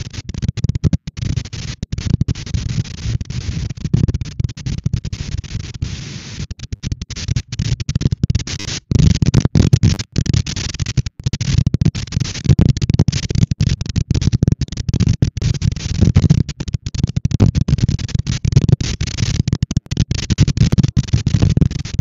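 Strong wind buffeting an outdoor nest-cam microphone: a loud, gusty low rumble with hiss, broken by frequent brief dropouts and swelling louder about nine seconds in.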